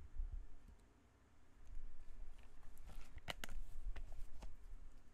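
A few light, sharp clicks close together about three seconds in, over low bumps and rumble of handling noise.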